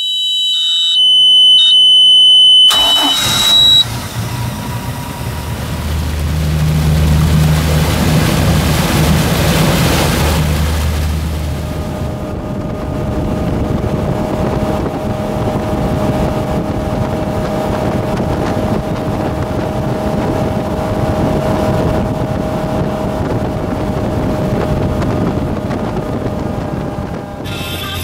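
Kayot Z201 deck boat: a high steady warning tone from the dash, then the engine starting about three seconds in and running underway, with wind and water rushing past.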